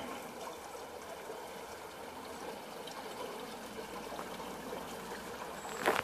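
Creek water trickling steadily as it runs under the ice and through an open lead, with a single crunch near the end.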